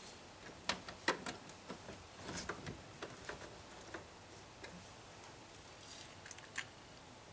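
Faint, irregular light clicks and taps of a socket wrench and plastic dash parts as the instrument cluster's screws are fastened.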